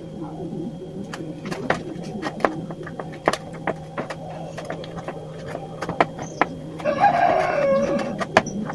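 A rooster crows once about seven seconds in, the loudest sound here. Under it, scattered light clicks and taps of a thin wooden stick working rat glue in a tin can, over a faint steady hum.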